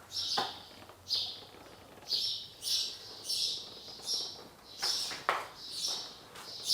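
Small birds chirping over and over inside a barn, about ten short high-pitched calls, which the explorer takes for swallows. A couple of soft knocks, one near the start and one about five seconds in.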